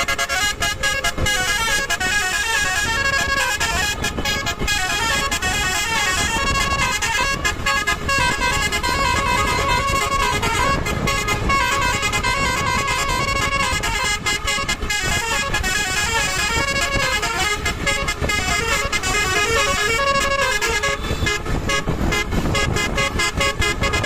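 Tour bus 'telolet' horn, a Basuri multi-tone electric horn set, playing a fast warbling melody of several notes without a break, with a low rumble underneath.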